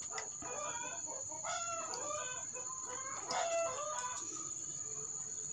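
Chickens calling in the background, with two long, pitched calls about one and a half and three seconds in, typical of a rooster crowing.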